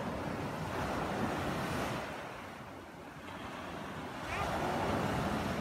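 Small sea waves breaking and washing up a sandy beach, the rush of surf swelling twice, first in the opening two seconds and again near the end.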